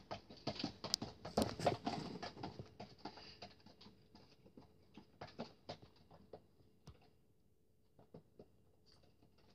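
Spoon stirring sticky glue slime in a plastic tub: a rapid, irregular run of small clicks. It is busiest in the first few seconds, then thins out and fades.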